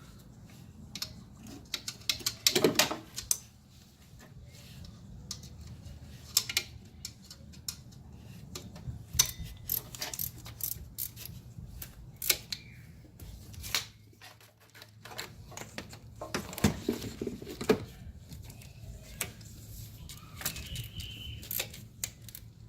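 Hand ratchet clicking and metal tools clinking in irregular bursts as the alternator's mounting bolts are tightened.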